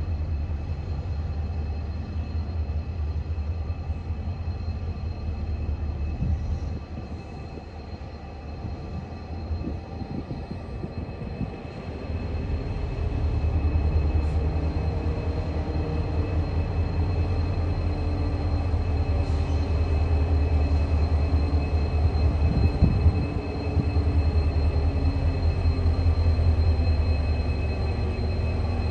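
Three XR class diesel locomotives hauling a grain train, their engines running with a deep, steady rumble as they approach slowly. The sound dips for a few seconds, then grows louder about twelve seconds in and stays strong.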